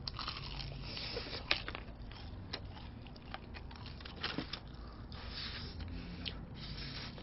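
Crispy fried chicken being bitten and chewed: crackly crunching with a few sharp cracks, the loudest about one and a half seconds in.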